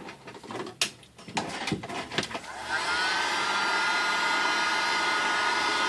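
A few small handling clicks and taps, then about two and a half seconds in an electric hot-air blower switches on and runs steadily with a faint whine, heating the phone's back to soften the battery adhesive.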